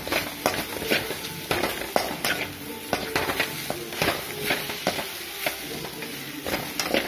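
Perforated steel skimmer stirring and scraping sliced okra around an aluminium kadai, about two scrapes a second, with frying sizzle underneath.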